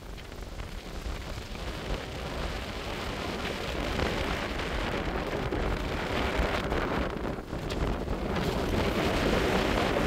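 Strong wind buffeting the microphone in gusts, a low rumbling rush that grows louder over the first few seconds and stays loud.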